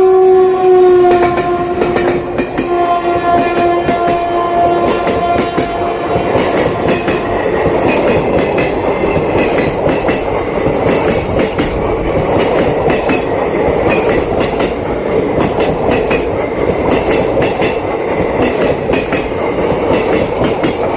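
Horn of a WAP-4 electric locomotive sounding one long blast that drops slightly in pitch about a second in and fades out about six seconds in. Under and after it the passing train rumbles, its wheels clacking steadily over the rail joints.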